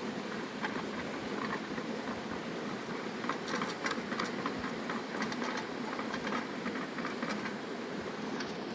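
Steady rush of flowing water under a wood campfire crackling, with irregular clusters of small snaps and clicks, busiest in the middle of the stretch.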